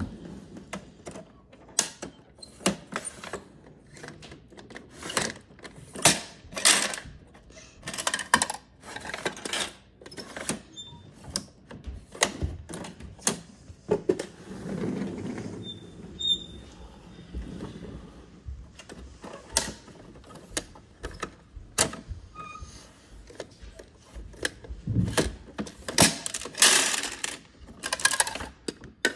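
Plastic toy garbage truck being rolled across a wooden floor and its side-loader arm worked by hand: irregular plastic clicks, clacks and rattles, with a low rolling rumble from the wheels now and then.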